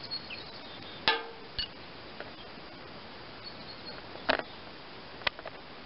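A handful of sharp clicks and knocks over a steady faint hiss, the loudest about a second in and just after four seconds.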